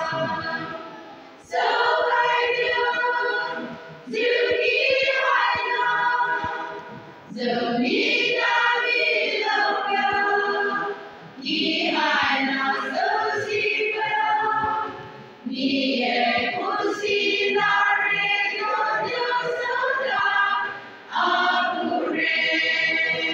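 A women's choir singing together, line by line, with short breaks between the sung phrases every few seconds.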